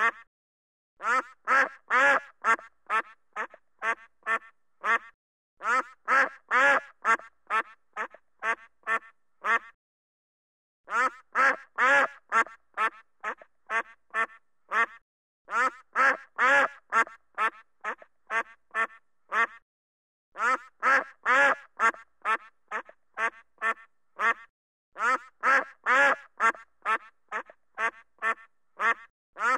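Duck quacking in repeated series of quick, loud quacks. Each series lasts about four seconds, with a pause of about a second before the next.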